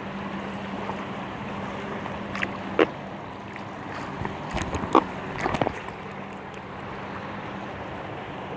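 Choppy river water rushing and lapping against an inflatable kayak, with a few sharp splashes and knocks, the loudest about three and five seconds in. A faint steady hum sits under it for the first few seconds.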